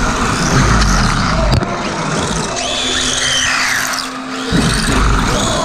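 Electric motors of 3D-printed OpenRC radio-controlled cars whining, rising and falling in pitch as they rev, over a low rumble that starts and stops in stretches.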